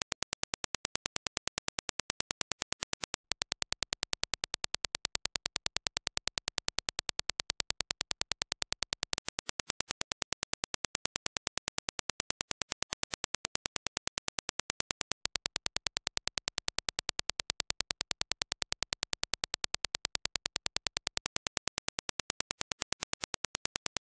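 Reference Dirac impulse test signal: a fast, evenly spaced train of sharp, identical clicks, several a second.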